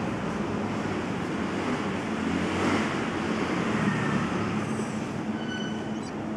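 Steady rumble of road traffic and general background din, with a brief faint high-pitched tone about five seconds in.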